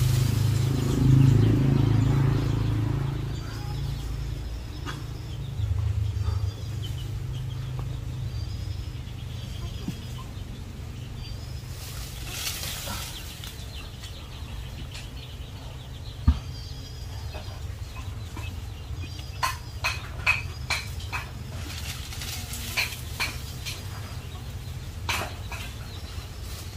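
Chickens clucking, with a run of short clucks about two-thirds of the way through, and small birds chirping faintly. A low rumble fills the first few seconds.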